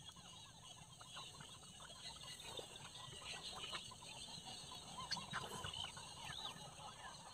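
A flock of wild ducks calling softly: many short, overlapping calls and chatter, faint but continuous.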